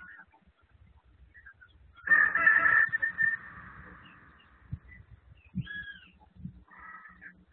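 A rooster crowing once, about two seconds in, a single call of a little over a second that trails off. Fainter short bird calls follow near the end.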